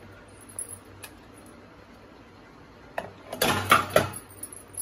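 Metal clatter as a plate holding the pizza is set down with two flat metal spatulas onto the wire rack inside an aluminium kadhai: a click about three seconds in, then a quick run of knocks and scrapes lasting under a second. A faint low hum sits underneath.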